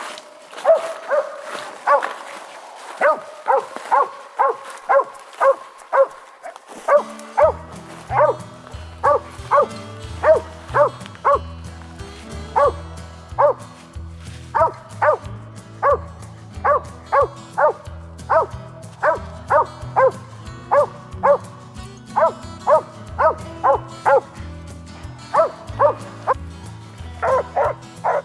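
A hunting dog barking steadily and repeatedly, about two barks a second, the barking of a squirrel dog treeing. Background music comes in about seven seconds in.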